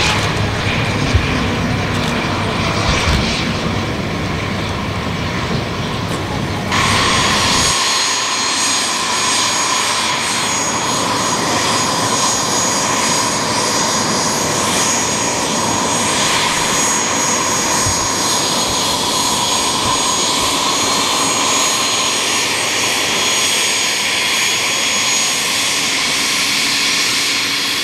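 Hawker 125-series business jet's engines whining steadily as it taxis close by, with a light aircraft's propeller engine running nearby. About seven seconds in, the low rumble drops away and the whine turns brighter and more hissing.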